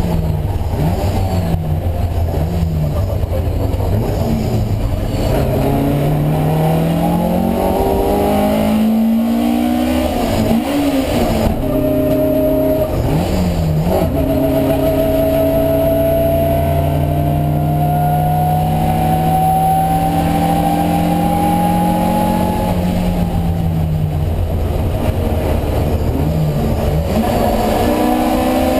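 Alfa Romeo Giulia 1600's twin-cam four-cylinder racing engine under hard driving. The revs blip up and down at first, then climb with sharp drops at two upshifts, pull up in one long rise through the middle, and fall with blipped downshifts near the end.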